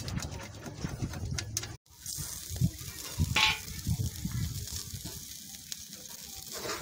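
Beef satay skewers sizzling over a charcoal fire, with fat dripping onto the coals and crackling in scattered pops. A low steady hum is heard for the first couple of seconds, then cuts off.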